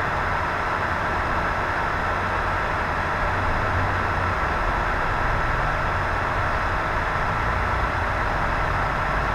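Steady, even hiss with a faint steady hum under it; no separate scrubbing strokes stand out.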